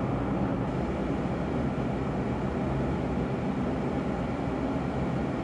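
A car ferry's engines and machinery give a steady low rumble with a constant low hum, heard aboard while the ship moves through the water.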